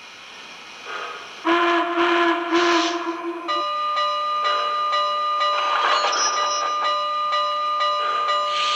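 MTH HO Santa Fe GS-4 4-8-4 model's onboard sound system blowing its steam whistle for departure: one blast, then a higher-pitched blast held on, with steam hiss under it.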